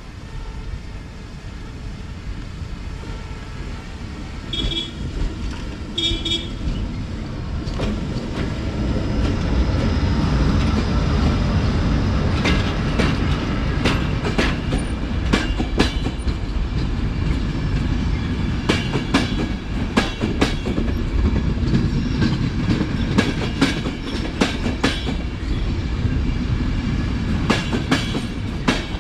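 A train rolling slowly past on the single working track, its rumble building and its wheels clicking sharply over the rail joints. Two short high-pitched horn toots sound about five and six seconds in.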